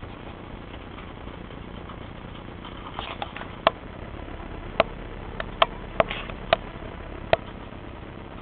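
A dog and a cat eating from a plastic food bowl: a run of sharp clicks and knocks, about eight of them, starting about three seconds in.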